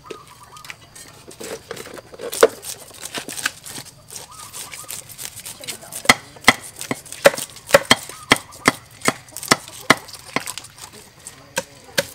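Knives and a cleaver chopping on round wooden chopping blocks while fish and vegetables are cut. A few soft knocks at first, then from about six seconds in a run of sharp, uneven chops, roughly two a second.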